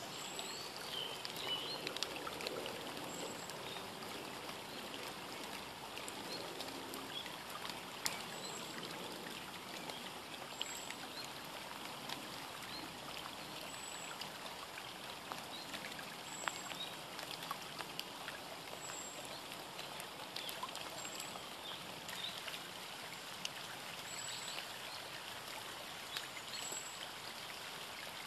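Steady outdoor background hiss with faint high bird chirps and scattered soft clicks.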